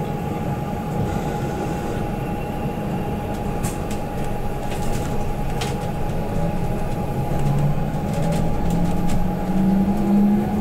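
Cabin of a BYD K9UB battery-electric city bus on the move: steady road rumble under a constant whine, with a few light clicks. Over the last few seconds the electric drive's whine rises in pitch as the bus accelerates.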